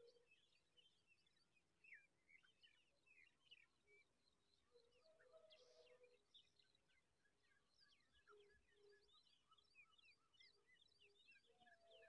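Faint birdsong: a dense, unbroken stream of quick high chirps and short whistled sweeps from small birds, with a few lower notes now and then.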